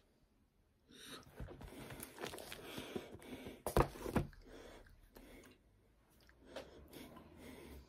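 Close rustling and handling noises from hands moving and brushing against clothing and each other, with a sharp tap nearly four seconds in.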